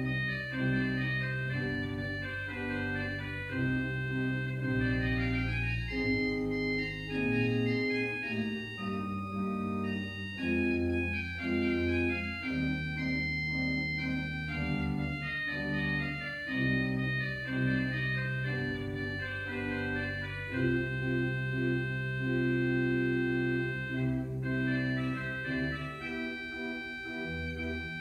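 Church organ playing a postlude: sustained chords over a moving bass line, each note held without fading.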